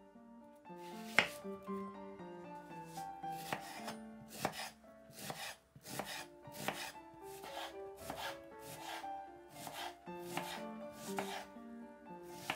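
Chef's knife cutting through an onion and striking a bamboo cutting board, in irregular chops about one to two a second, the loudest about a second in. Soft background music plays underneath.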